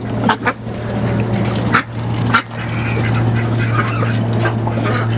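Ducks quacking while they crowd in to feed, with several sharp clicks in the first half and a steady low hum underneath.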